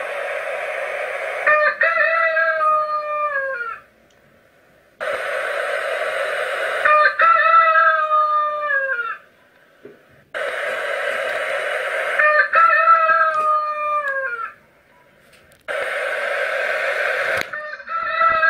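Rooster crowing four times, about five seconds apart, each crow alike. Each opens with a harsh, rasping stretch and goes into a pitched call that falls away at the end.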